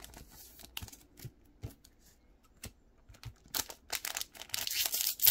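Trading cards and their plastic sleeves and foil packaging being handled: scattered light clicks and taps, then a denser crinkling rustle from about three and a half seconds in.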